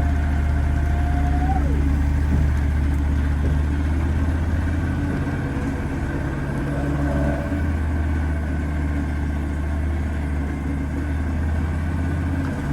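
Wood-Mizer LT40 Super sawmill's engine running steadily. A thin whine drops away about a second and a half in.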